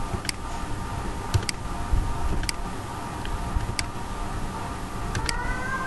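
Computer mouse clicks: about seven short, sharp clicks a second or so apart, over a steady background hiss and hum. Near the end a faint rising whine comes in.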